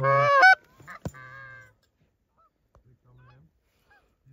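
Canada goose honking: one loud honk at the very start, a sharp click about a second in, then a shorter, quieter honk and faint scattered honks.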